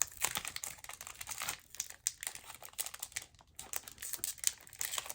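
Foil booster pack wrapper crinkling and crackling as it is worked open by hand, a dense irregular run of small crackles with a brief lull past the middle.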